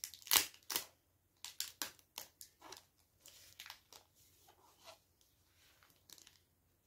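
Clear plastic protective film crinkling and crackling as it is peeled off a new smartphone by hand: a quick run of sharp crackles in the first second, then scattered softer crinkles that thin out near the end.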